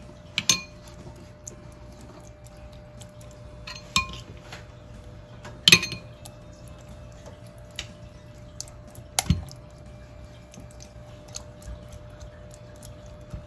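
Spoon clinking and knocking now and then against the plate and glass bowl while masala marinade is spread over a raw whole chicken; the sharpest knocks come about six and nine seconds in.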